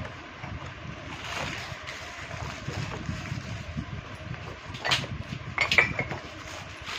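Low, steady rumbling noise on the microphone, with a few light knocks and clinks of household objects being handled about five and six seconds in.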